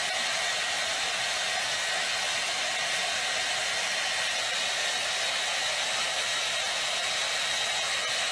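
A small motor-driven blower running steadily: an even rush of air with a faint high whine.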